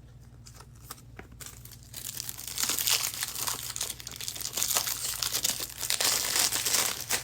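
Crinkling of a foil football trading card pack wrapper being handled and torn open, starting about two seconds in and running continuously, with a few light clicks before it.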